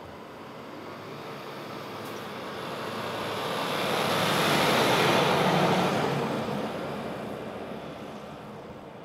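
Fire engine driving past, without its siren: engine and tyre noise swell to a peak about five seconds in, then fade as it moves away.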